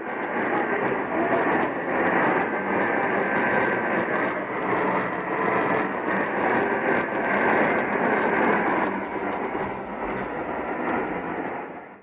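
AM radio tuned to a distant station at 840 kHz, giving a steady hiss of static confined to the radio's narrow, muffled audio band, with faint steady tones underneath. It cuts off suddenly at the end.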